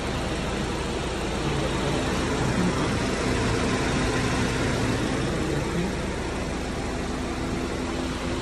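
A 2017 BMW 530i's engine idling with a fan running, a steady hum under an even rush of air, as the engine warms up after a coolant expansion tank replacement.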